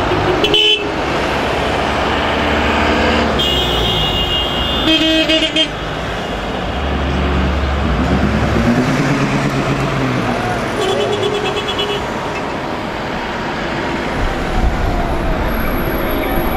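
A convoy of buses, minibuses and cars driving past, engines and tyres running steadily, with horns tooting several times along the line. A heavy vehicle's engine rumbles past about halfway through.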